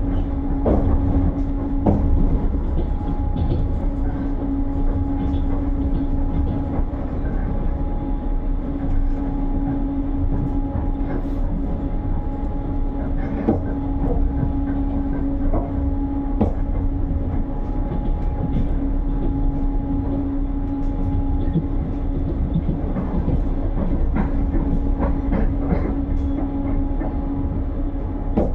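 Passenger train running at speed, heard from on board: a steady rumble with a constant hum and scattered clicks of the wheels over the rail joints.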